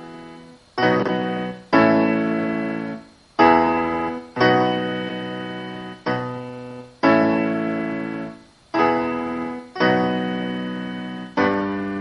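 Solo piano playing a slow progression of full block chords, about nine in all. Each chord is struck firmly and left to ring and fade before the next. They come in uneven pairs, so the music moves in a slow, halting pulse.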